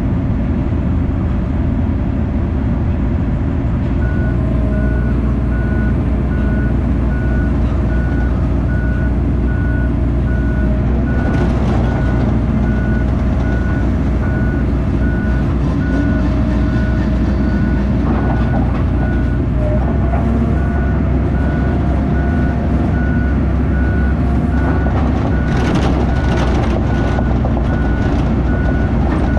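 Diesel engine of a heavy mud-hole recovery machine running as it backs up, with its reversing alarm beeping steadily at about two beeps a second from about four seconds in. A few sharp knocks come from the machine around the middle and near the end.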